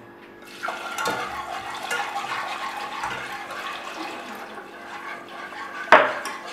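Cold brown stock poured into a saucepan of hot browned butter-and-flour roux while a wire whisk stirs it: a steady rush of liquid starting about half a second in, with a single sharp clink near the end.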